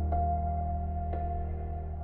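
Slow ambient soundtrack music: a held low chord slowly fading, with a soft higher note struck about once a second.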